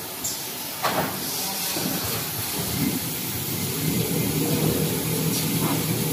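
Toilet paper glue lamination line running: a steady mechanical hum with a hiss of rollers and moving paper web, a single knock about a second in, and the noise slowly growing louder.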